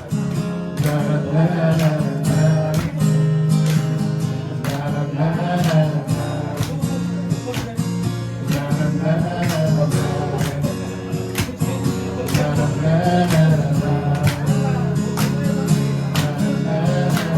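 Acoustic guitar strummed in a steady rhythm through an instrumental break between verses of a sung song, with a wavering melody line above the chords.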